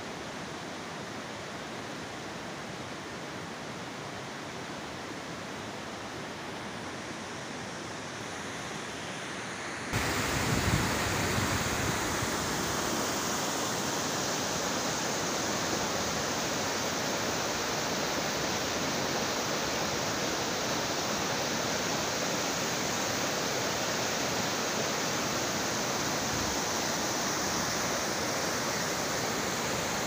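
Fast mountain stream rushing over rocks: a steady rush of water that gets suddenly louder about ten seconds in.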